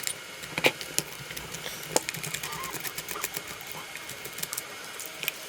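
Scattered light clicks and taps of small screws and plastic parts being handled and unscrewed while an RC truck's chassis is being taken apart.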